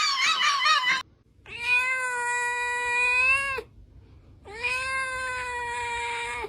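A domestic cat giving two long, steady meows, each about two seconds, with a short gap between them. Before them, a burst of human laughter cuts off about a second in.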